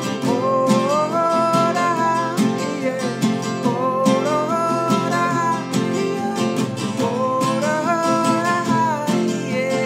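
Acoustic guitar strumming steadily under a sustained melody line that slides between held notes, with no words sung.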